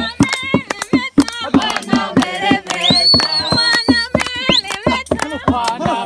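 A group of kitchen staff singing a celebration song together over a steady, sharp clapped or beaten rhythm, with a high held call about three seconds in.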